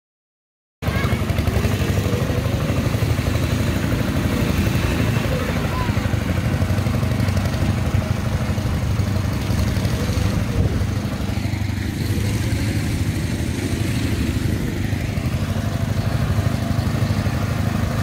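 Small garden-tractor engines running steadily at a low, lumpy beat: the Briggs & Stratton on a custom steel-wheeled tractor and a John Deere 110 moving across the yard. The sound cuts in about a second in.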